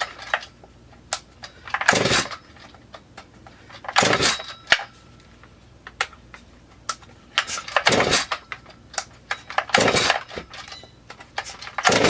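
Recoil starter of a Stihl MS440-clone chainsaw pulled about five times, each a short rasping pull roughly two seconds apart, with small clicks in between; the two-stroke engine catches and runs at the very end.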